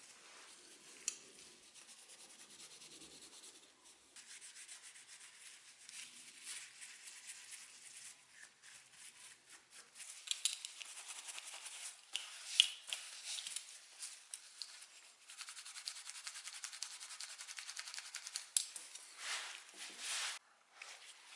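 Hand rubbing on a wooden furniture surface, a dry scratchy noise in uneven back-and-forth strokes, with a few sharp clicks along the way.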